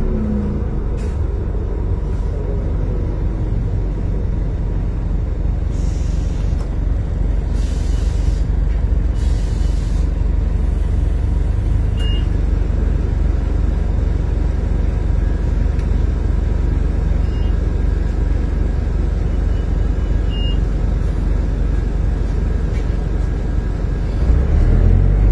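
The 1995 New Flyer D40LF bus, with its Detroit Diesel Series 50 engine, heard from inside the cabin: a steady low diesel drone as the bus slows and stands at a stop, with short hisses of air a few seconds in. Near the end the engine note swells and rises as the bus pulls away.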